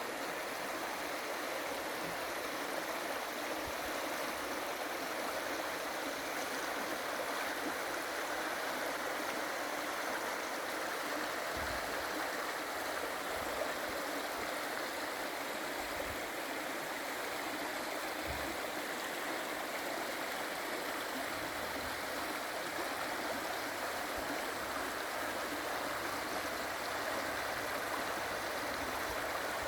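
Waterfall: water rushing and splashing in a steady, unbroken roar of white noise.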